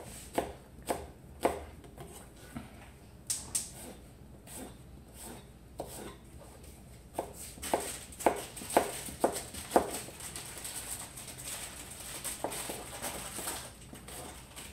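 Chef's knife chopping apple on a cutting board: sharp, irregular knocks of the blade on the board, a few near the start and a quicker run of about two a second around the middle.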